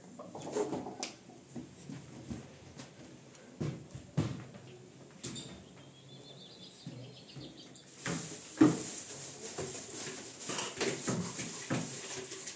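Scattered knocks, thumps and clicks of household handling in a small tiled room, the sharpest about two-thirds of the way in, with a short run of high chirps near the middle.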